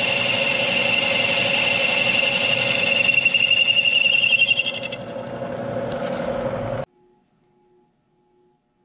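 Milling machine spindle turning a boring head that is cutting out the center bore of a Subaru flywheel, a steady machining sound with a ringing high tone. It gets quieter about five seconds in and stops abruptly just before seven seconds.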